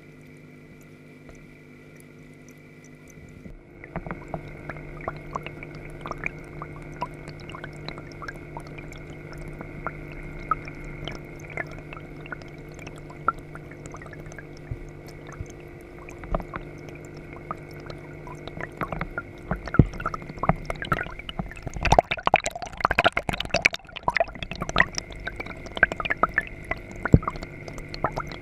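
Water in a turtle tank heard from underwater: a steady equipment hum with gurgling water, and from about four seconds in, irregular clicks, knocks and scrapes close to the microphone, denser and louder in the last third, as the snapping turtles bump and push against the camera.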